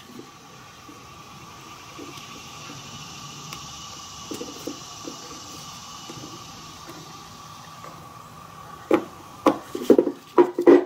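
A small metal pry tool working at the seam between a 1999 Nissan Maxima EGR valve's stepper motor and its coolant housing to separate them: a few soft taps and scrapes, then a quick run of sharp clicks and knocks over the last two seconds.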